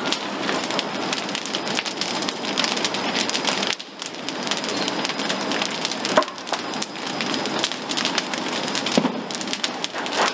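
Apartment building burning fully involved: a dense crackling hiss with many sharp pops and snaps from the burning wood structure, dipping briefly about four seconds in.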